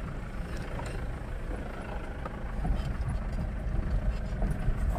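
Mahindra Bolero driving on a rough dirt road, heard from inside the cabin: a steady low engine and road rumble with a few knocks, getting louder in the second half.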